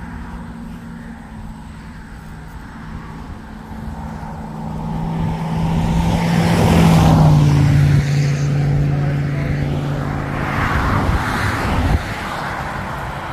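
A road vehicle passing by on the highway. Its engine and tyre hum swells in loudness, drops in pitch as it goes past about halfway through, then fades away.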